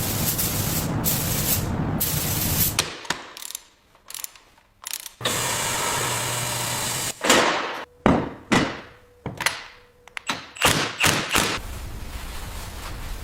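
Workshop tool sounds: a steady hiss that stops a little under three seconds in and returns about five seconds in. Then a run of about eight sharp clanks and knocks, roughly half a second apart, fades out.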